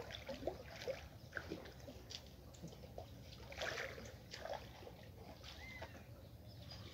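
Faint, irregular sloshing and splashing of muddy pond water as a man wades chest-deep and gropes along the bottom with his hands.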